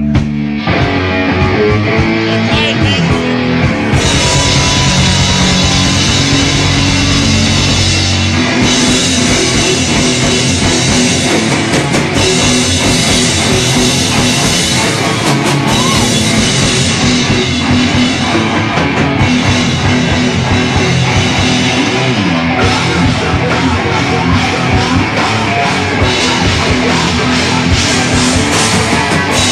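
Live rock band playing loud, with electric guitar and drum kit.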